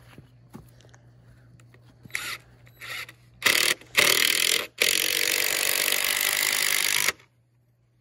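Cordless drill driving a screw into a wooden brace: four short bursts, then a steady run of about two seconds that cuts off suddenly about seven seconds in.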